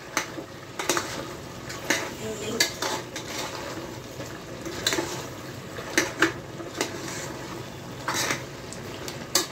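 A spoon stirring and scraping mutton, onions and spices frying in a pressure-cooker pot, knocking against the pot at irregular intervals about once a second over a steady sizzle.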